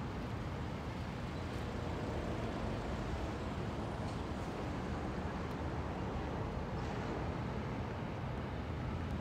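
Toyota Celsior's 4.3-litre V8 idling while parked, a steady low sound from its dual exhausts.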